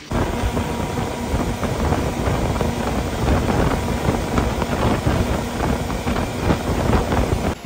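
Speedboat under way at speed: a steady engine drone mixed with the rush of water off the hull and heavy wind buffeting on the microphone. It cuts off suddenly near the end.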